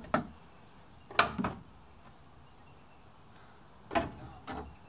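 A few sharp knocks and clunks of a gas bottle storage box being worked into its cut-out in a van's sheet-metal side panel: one just after the start, a short cluster about a second in, and another near the end.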